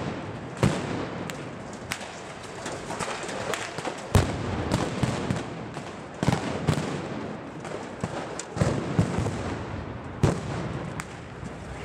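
Sharp blasts at irregular intervals during a street clash, about six loud ones with the loudest about four seconds in, over steady background street noise.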